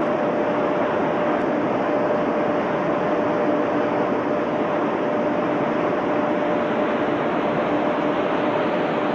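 Steady industrial din of a glass container plant's production machinery: an even rushing noise with a constant hum running through it.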